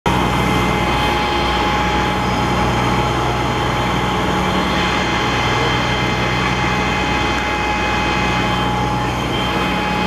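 Fire apparatus engines and pumps running steadily at high revs, a constant drone with a steady whine, over water rushing and churning into portable folding tanks through large hoses.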